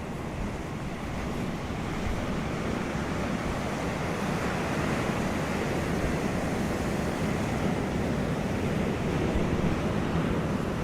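Ocean waves: a continuous rush of surf that swells over the first couple of seconds and then holds steady.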